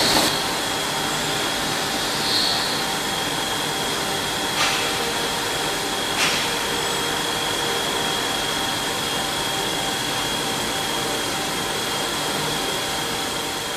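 Linares Copimac profile knife grinder running steadily: an even rushing machine noise with a thin high whine over it, and two faint ticks near the middle.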